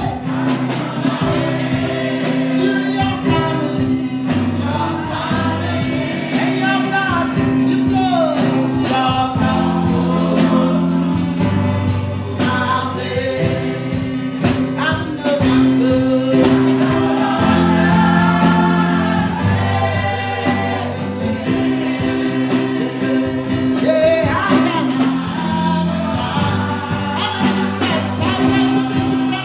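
Gospel worship music: singing over held low chords that change every few seconds.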